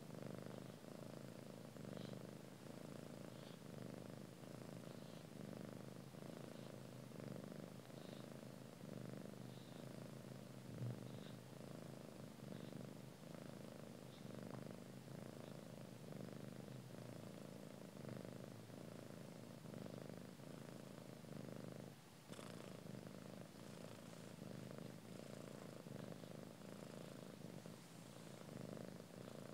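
Cat purring steadily and softly, a continuous low pulsing rumble.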